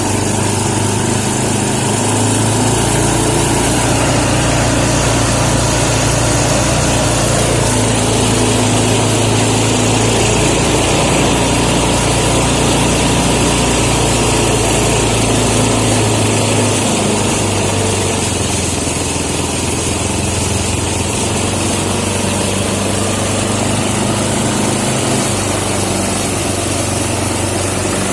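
Small engine of a motorised rice thresher running steadily. Its deep low note comes in about two seconds in and drops away a little past halfway.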